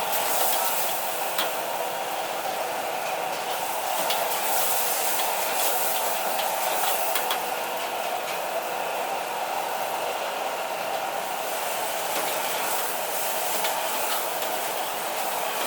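High-heat gas wok burner running with a steady rush as green vegetables sizzle in the wok, with a few light clicks of the spatula against the wok.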